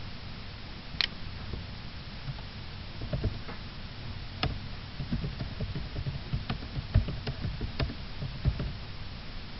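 A few sharp clicks and a run of low knocks and thumps over a steady low hum.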